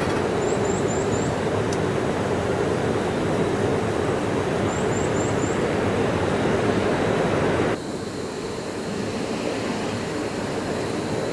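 Camping gas stove burner running with a steady roaring hiss, dropping sharply quieter about eight seconds in as the flame is turned down.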